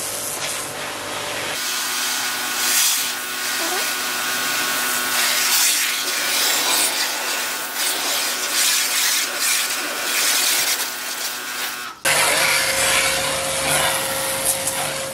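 Pressure-washer jet spraying water onto a foam-covered scooter: a loud, steady hiss with a steady hum under it. The sound changes abruptly about a second and a half in and again about 12 s in.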